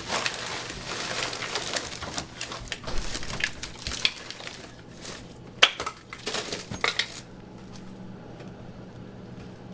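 Kitchen clatter of dishes and food containers being handled: rustling with scattered knocks and clicks, dying down about seven seconds in.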